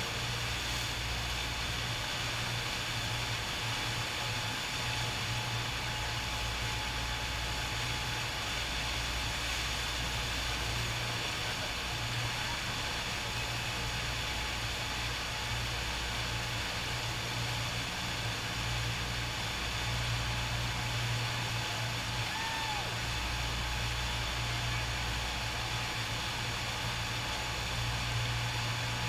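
Steady rush of water from a FlowRider sheet-wave machine, a continuous sheet of water pumped up over the riding surface and churning into foam. A low hum under it drops in and out every several seconds.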